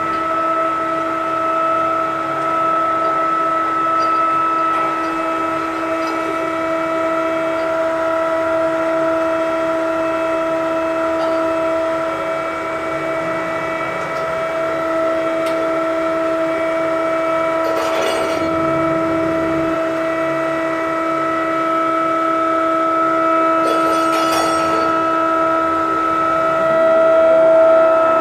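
Ship's deck crane running, heard from inside the operator's cab: a steady machine whine held at one pitch. Knocks come twice past the middle, and the whine rises in pitch and gets louder near the end.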